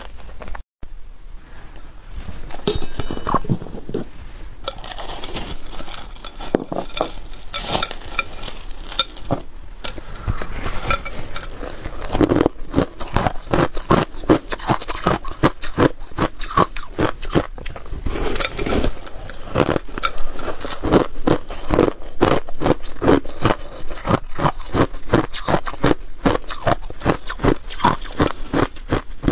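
Crushed ice crunching as it is chewed, in a quick steady run of crisp crunches, mixed with the gritty scraping of shaved ice being handled.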